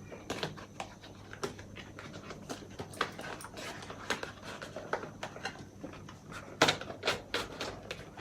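Packaging of a GoPro Hero 7 Black box being pulled open by hand, without a knife: a run of irregular scrapes, rustles and clicks, with a louder burst of clicks about six and a half seconds in.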